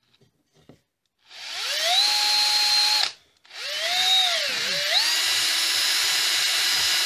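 Green Bosch cordless drill spinning a small wire brush bit, scouring the charred surface of flame-blackened wood. The motor whines up to speed, stops about three seconds in and starts again at once, slows briefly about halfway, then runs steadily.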